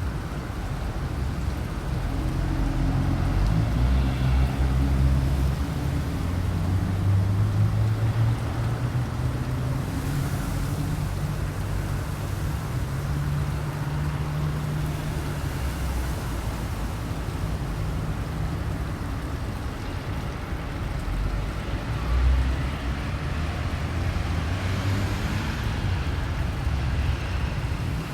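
Gusty wind buffeting the microphone as a low, uneven rumble, with a couple of stronger gusts rising into a rushing hiss, about ten seconds in and again near the end.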